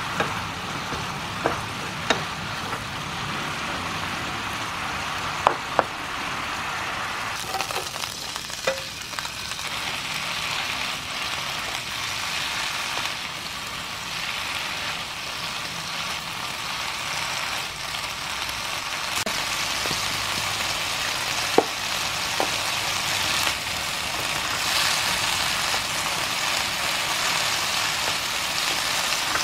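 King oyster mushroom strips and then bean sprouts sizzling in oil in a nonstick pan as they are stir-fried with chopsticks, with a few sharp clicks of the chopsticks against the pan. The sizzle grows louder in the second half.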